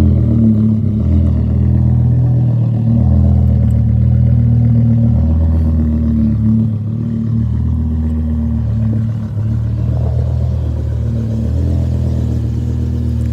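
BMW M6's 5.0-litre V10 engine idling steadily.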